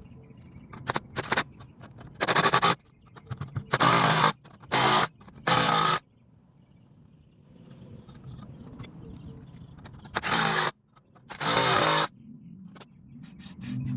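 Power tool run in a string of short bursts, each well under a second. There are six in the first six seconds, then two more after a pause of about four seconds.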